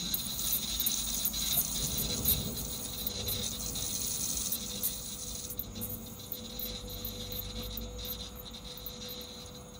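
Cabin noise inside a stopped car: a low, steady engine hum with a faint tone, and scattered light ticks and rattles that thin out in the second half.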